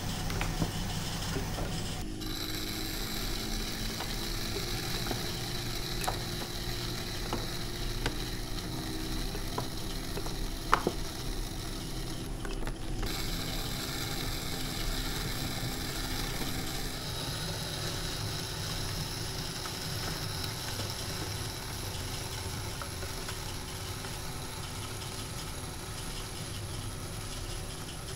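Loop trimming tool shaving leather-hard clay from the base of a pot spinning on an electric potter's wheel: a steady scraping over the wheel's steady hum, with a few sharp clicks, the loudest about 11 seconds in.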